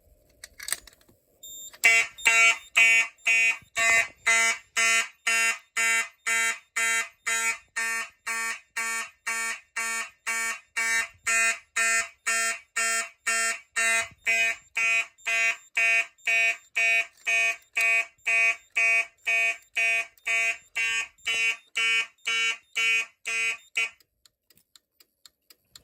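Fire alarm horn on a Simplex 4010 system sounding in 120-beats-per-minute march time, about two blasts a second, set off by a pulled manual pull station. It cuts off suddenly shortly before the end as the alarm is silenced.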